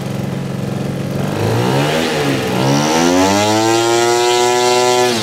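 Gasoline engine and propeller of a large RC Piper J-3 Cub model, idling and then run up about a second in to a high steady pitch as the plane is held on the ground for a pre-flight engine run-up. It is throttled back toward idle at the very end.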